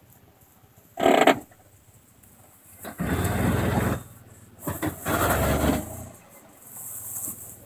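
Jeep engine revving in two bursts of about a second each over a low idle, with a brief loud sound about a second in.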